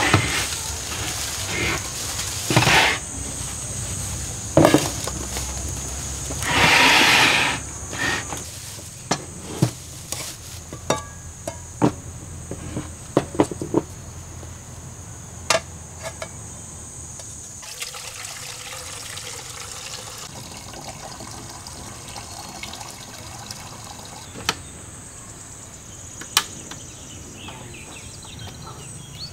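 Water splashing and sloshing, with a short rush of water about a quarter of the way in and scattered sharp clicks of snail shells knocking together. Under it runs a steady high insect drone that stops a little past halfway.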